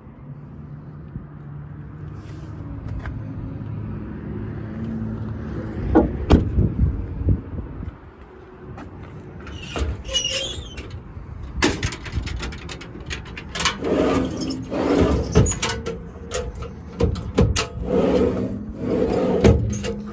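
A low steady hum, then from about halfway a run of metal clunks, latch clicks and squeaks: the compartment doors of a truck's steel service body being opened and handled.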